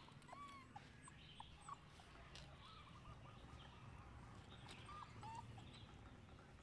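Faint, short, high-pitched chirping calls from animals, repeated several times, with a longer wavering trill about a third of the way in.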